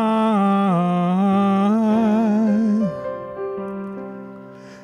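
A man singing a long held note with vibrato over keyboard accompaniment; the voice stops about three seconds in and the keyboard chord rings on, fading away.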